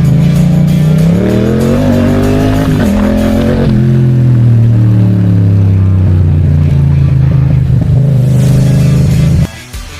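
Yamaha MT-07's 689 cc crossplane parallel-twin engine running hard. Its pitch climbs for about two seconds, drops sharply, then sinks slowly and holds steady before cutting off suddenly near the end.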